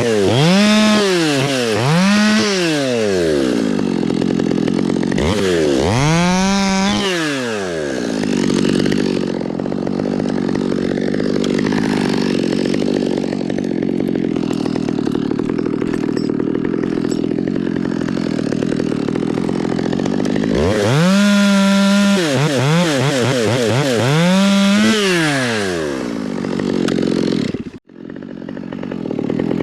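Chainsaw revving up and down in quick blips, then held at steady throttle under load for about twelve seconds while cutting into pine. It is revved in blips again and drops out briefly near the end.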